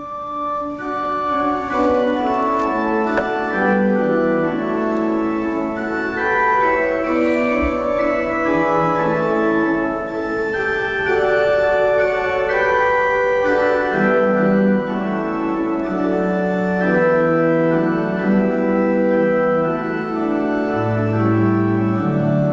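Organ playing the introduction to a hymn in slow, sustained chords, with a deep bass note coming in near the end.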